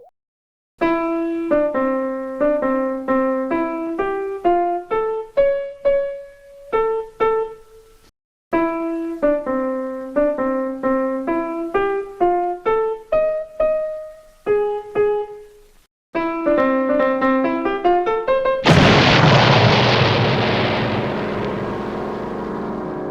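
Cartoon sound-effect cue: a quick melody of struck piano-like notes in three short phrases, followed near the end by a loud, sudden explosion-like burst of noise that dies away slowly over several seconds.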